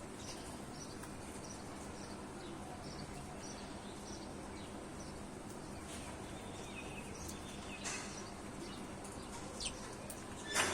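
Parrots making soft, short chirps over a steady hiss, with a few sharp clicks; the loudest click comes right at the end.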